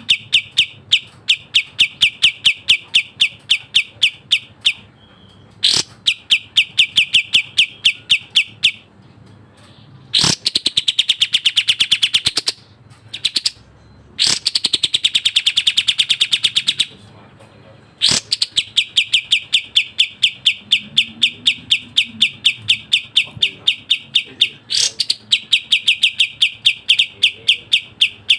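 Kapas tembak bird singing long runs of rapid, closely spaced high chirps, several a second, with short breaks between runs. About ten seconds in and again about fourteen seconds in, it gives a denser, faster trill of a few seconds each.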